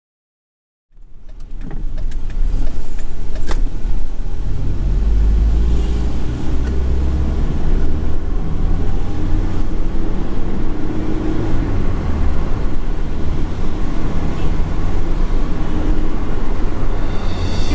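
A motor vehicle driving, its engine and road noise a steady low rumble that starts suddenly about a second in.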